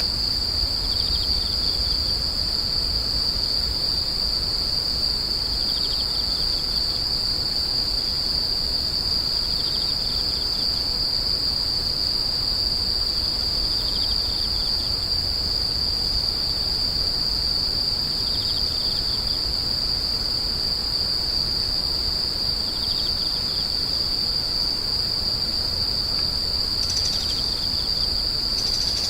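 Grass insects calling: one unbroken, high-pitched steady trill, with a second, lower insect call repeating briefly about every four seconds.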